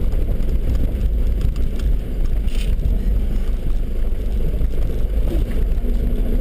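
Nissan Patrol GR Y61 driving slowly over a rough dirt track, heard from inside the cab: a steady low rumble of engine and tyres on gravel.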